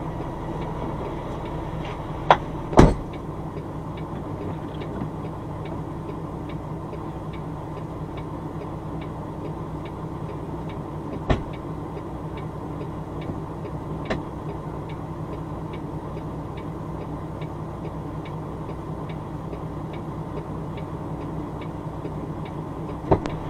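Semi truck's diesel engine running steadily, heard from inside the cab, with a flasher relay ticking evenly about twice a second. A thump about three seconds in and another near the middle.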